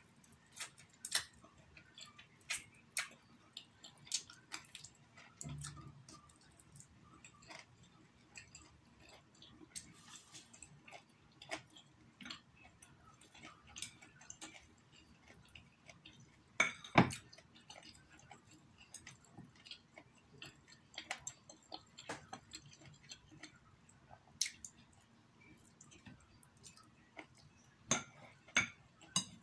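Eating sounds: chewing and mouth smacks on instant noodles, with chopsticks clicking against a plate in short sharp ticks. One louder clack comes a little past halfway.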